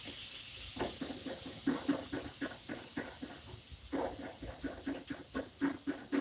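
A spatula tapping and scraping in a frying pan in quick, uneven runs of knocks, several a second, as ground taco meat is broken up and stirred while it browns.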